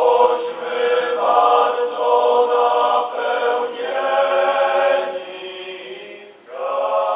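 A choir singing in long held phrases, with short breaks between them; a new phrase starts near the end.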